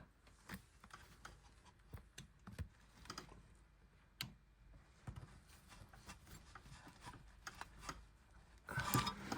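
Faint, irregular small clicks and light taps of hand tools working at the steering tie rod and its rubber boot.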